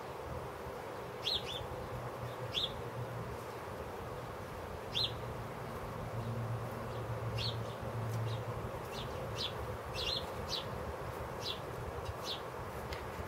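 House sparrows chirping in short single cheeps, about a dozen at irregular intervals and more often in the second half. Under them runs a steady low hum that swells for a few seconds midway.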